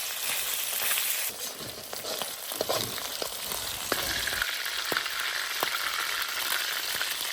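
Chopped sour meat (cured pork) sizzling as it fries, with steady hissing. It is stirred, giving several sharp clicks of the spatula against the pan about halfway through.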